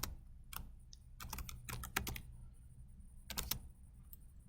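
Typing on a computer keyboard: short runs of keystrokes with pauses between them, over a faint steady low hum.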